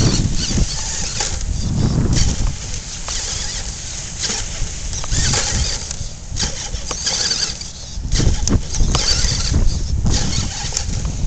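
Wind buffeting the microphone in irregular gusts, with a few sharp clicks late on.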